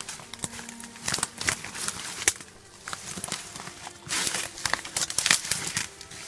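Footsteps pushing through dense weeds and brush, with leaves and stems rustling and twigs crackling in irregular bursts.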